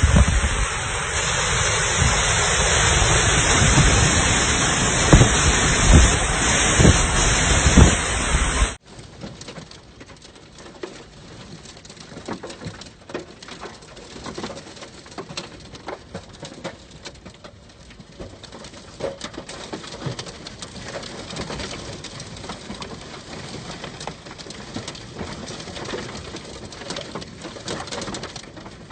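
Heavy storm rain with wind gusts buffeting the microphone, loud and steady, cutting off abruptly about nine seconds in to much quieter light rain with scattered drips and a bird calling.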